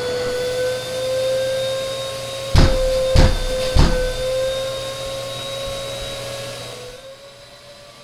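Vacuum cleaner running with a steady whine, its hose held to a concrete wall crack to suck out brushing dust. Three loud knocks come about half a second apart, around three seconds in, and the sound gets quieter near the end.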